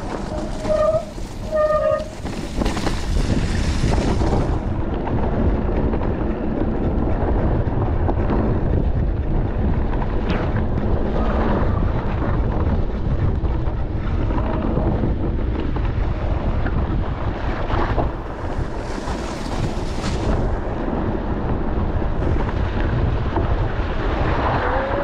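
Wind buffeting the microphone as a mountain bike rolls along a trail: a steady, loud low rumble, with a few short squeaks about a second in.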